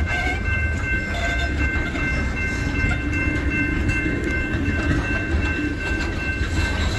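Freight train cars rolling past: a steady rumble of steel wheels on rail, with a few steady high-pitched tones held through it.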